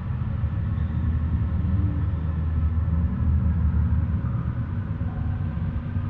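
A steady, deep rumble with faint high tones held above it.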